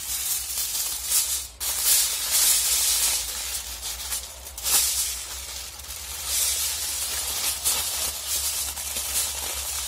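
Aluminium foil crinkling and crackling as hands fold and crumple it into a wrap around a whole chicken, in uneven rustling swells.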